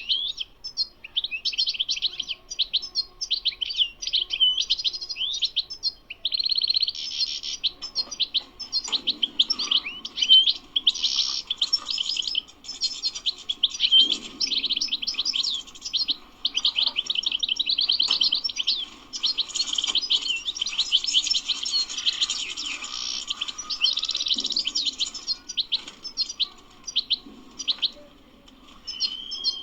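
European goldfinch singing a long, fast twittering song of rapid trills and buzzy notes, with a few short pauses.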